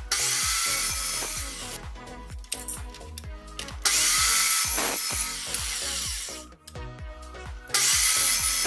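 A handheld power tool running in three bursts, the second the longest, cutting or drilling into material. Background music with a steady beat plays throughout.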